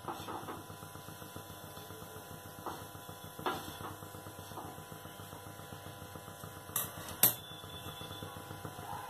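Slices of garlic bread being pressed and shifted by hand on a nonstick flat pan (tawa), giving light taps and two sharp clicks close together near the end, over a faint steady hum.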